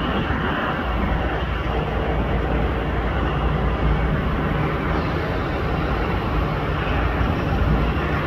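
Steady rumble of jet aircraft engines at an airport, with a faint steady whine about two seconds in.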